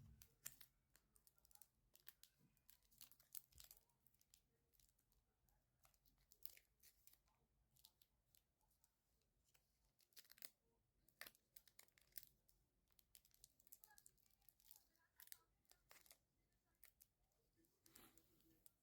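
Faint, irregular rustling, tearing and small taps of phone packaging being handled and opened.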